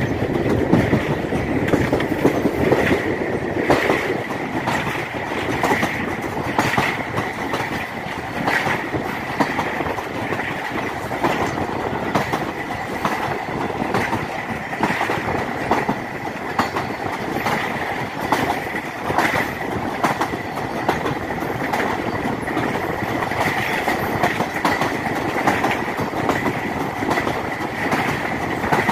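Passenger train running at speed, heard from on board: the wheels clatter over rail joints with a regular clickety-clack about once a second, over a constant high whine from the wheels on the rails.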